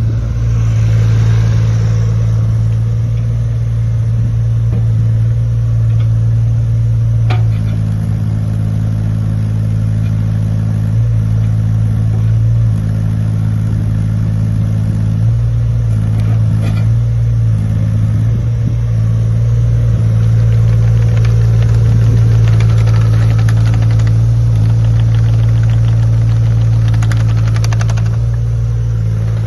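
JCB 8020 mini excavator's diesel engine running at a steady speed, its note shifting slightly every few seconds as the load changes. There is a sharp click about seven seconds in.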